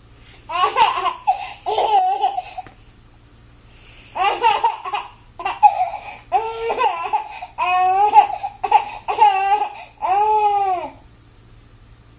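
Baby laughing hard in repeated bursts of giggles, pausing briefly after about three seconds, then ending with one long squeal that rises and falls in pitch.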